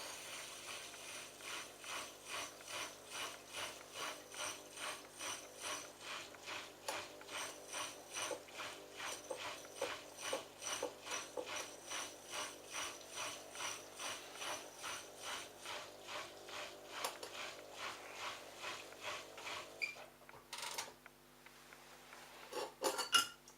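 Bosch Logixx washing machine running its drain cycle, a rhythmic mechanical pulsing about twice a second that stops about 20 seconds in. A few clicks and a louder clatter follow near the end.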